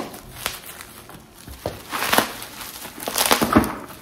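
Plastic packaging wrap crinkling and rustling in a few short bursts as it is cut with scissors and pulled open by hand.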